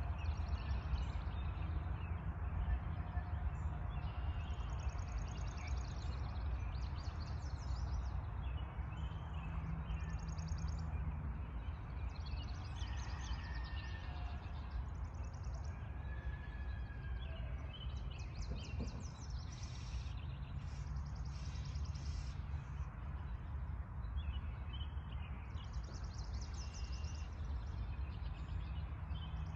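Several birds singing a dawn chorus, with repeated rapid high trills coming and going throughout and a few clear whistled notes, over a steady low rumble.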